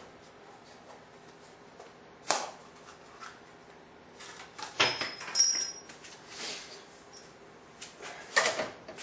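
Scattered light metal clicks and clatter as a drill bit is handled and fitted to a drill press, a few separate knocks with a brief metallic ring in the middle.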